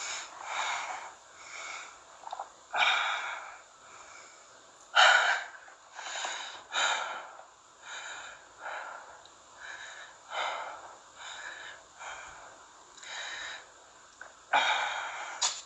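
A young man breathing heavily close to the microphone: a run of quick, uneven breaths in and out, about one every half second to a second, some louder and sharper than others.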